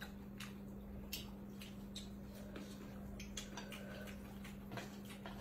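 Faint, irregular clicks of chopsticks against ceramic plates and bowls while noodles are picked up and eaten, over a steady low hum.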